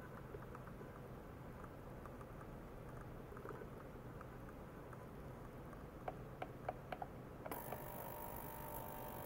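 Quiet room tone with a few light clicks about six to seven seconds in. Then a steady hiss with a faint tonal hum starts suddenly as the 42 kHz, 26 W ultrasonic cleaner switches on and runs.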